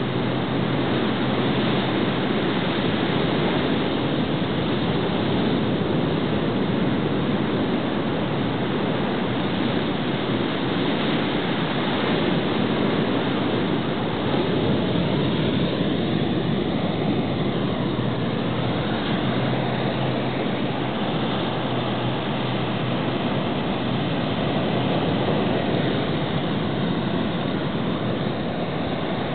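Shorebreak waves breaking and white water washing in, a steady rushing noise that never lets up.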